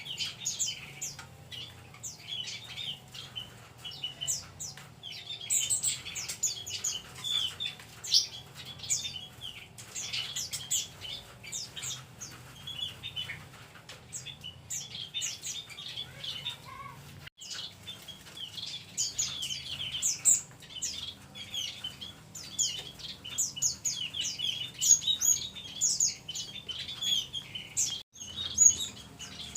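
Mixed small songbirds in an aviary, among them white-eyes, munias, bulbuls and flycatchers, chirping and twittering over one another in a dense, unbroken chorus of short high notes.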